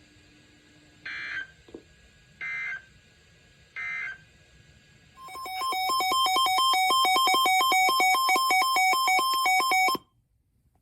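Emergency Alert System data signal: three short bursts of SAME digital data tones about a second and a half apart, then a loud alert tone rapidly alternating between two pitches for about five seconds, which cuts off sharply.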